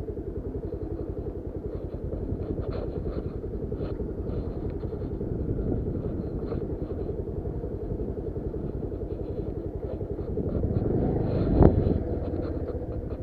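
Motorcycle engine running steadily with rapid even firing pulses. It gets louder near the end, with one sharp knock.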